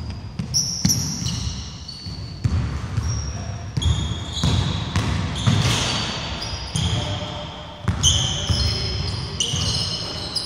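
Pickup basketball on a wooden gym court: a ball bouncing in repeated thuds and sneakers squeaking in many short, high squeals as players cut and stop, echoing in a large hall.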